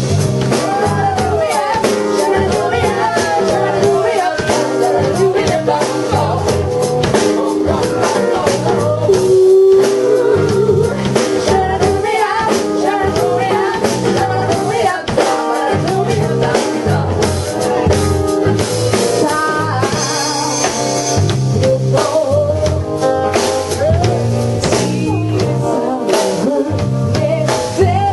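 A live band playing a song, with a singing voice over drums and guitar.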